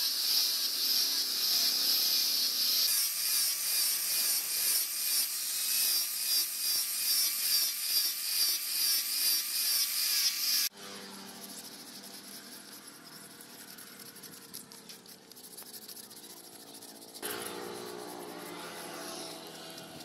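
Angle grinder with a sanding disc on a rubber backing pad sanding a wooden knife handle: a high-pitched whine that swells and fades about twice a second with each pass. It cuts off abruptly about halfway through, leaving quieter rubbing and, near the end, a low droning hum.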